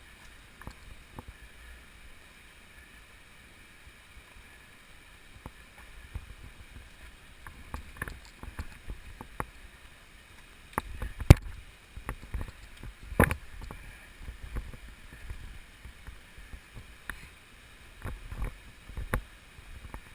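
Low wind rumble on the microphone with scattered clicks and knocks from handling or gear, including two sharp knocks a couple of seconds apart around the middle.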